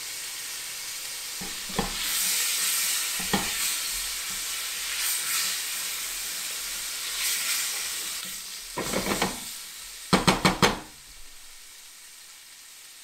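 Chopped vegetables sizzling in hot olive oil in a soup pot while being stirred. A few knocks come through early on, then a quick run of sharp, loud knocks just after ten seconds, after which the sizzle drops away.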